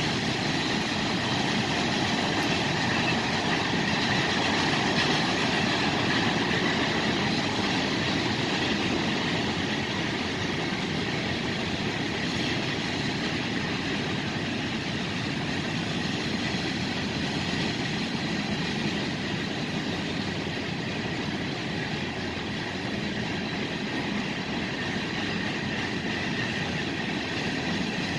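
Freight train cars rolling past steadily: a continuous rumble and rattle of steel wheels on the rails, with a faint high ringing tone held over it.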